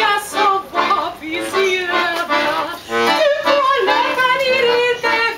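Singing with instrumental accompaniment: long held sung notes with a wavering vibrato.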